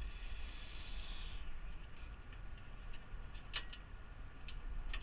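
A few faint, sharp clicks of hand tools on metal parts, over a low steady background hum and a brief faint hiss at the start.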